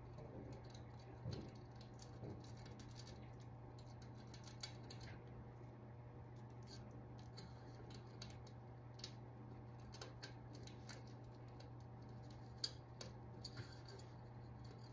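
Plastic zip ties being fed through holes in a metal cooking pot and pulled tight: faint scattered clicking in short runs, over a steady low hum.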